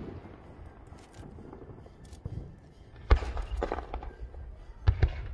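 Aerial fireworks going off: a cluster of sharp bangs and crackle about three seconds in, then a few more sharp bangs near the end.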